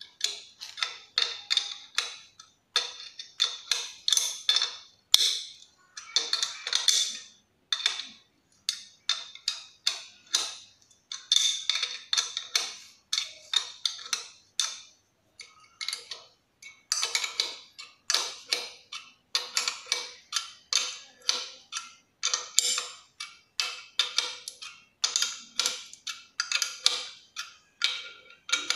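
A 12 mm combination wrench clicking and clinking against the nuts of Dynabolt sleeve anchors and their steel mounting plate as the nuts are tightened. The sound comes as quick, irregular clusters of sharp metallic ticks with a short ring.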